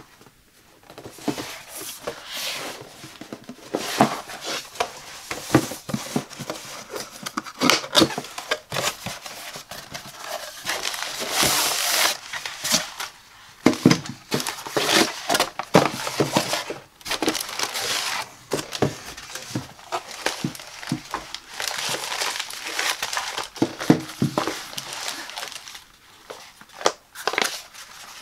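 Cardboard box and plastic packaging handled close up: box flaps opening and scraping, plastic crinkling, and items picked up and set down with frequent sharp taps and rustles.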